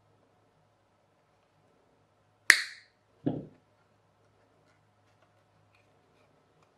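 Side cutters snipping through thin steel wire with one sharp snap about two and a half seconds in, followed under a second later by a duller knock.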